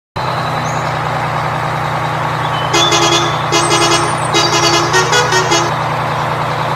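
Truck engine running steadily, with its horn sounded in several honks, short and longer, over the middle of the clip.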